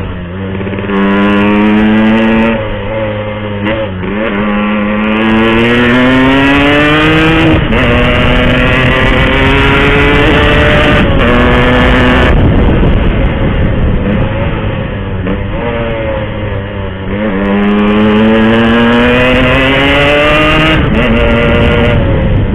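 Yamaha RX-King's 135 cc two-stroke single-cylinder engine pulling hard at speed. Its pitch climbs in long sweeps several times, dropping back briefly between pulls, with a steadier stretch in the middle.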